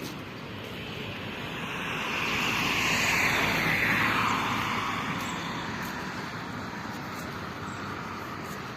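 A vehicle passing by: its noise swells for about two seconds, peaks around three to four seconds in, then fades away.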